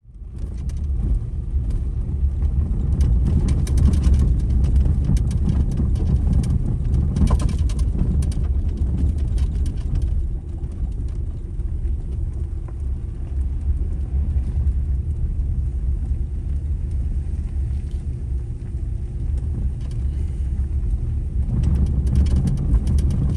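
Vehicle driving on a gravel road: a steady low rumble of tyres and engine with scattered clicks and ticks of gravel, busiest in the first several seconds and again near the end.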